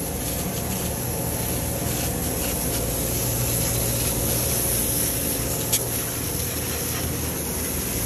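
Water jetting from a hose spray nozzle, hissing and splashing steadily against the concrete-caked mixing auger and trough of a volumetric concrete truck during washout. A steady low engine hum runs beneath it.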